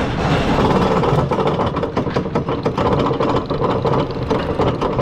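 Roller coaster train being hauled up its chain lift hill: a rapid, continuous clatter of the lift chain and anti-rollback dogs clicking along the track, over a steady mechanical hum.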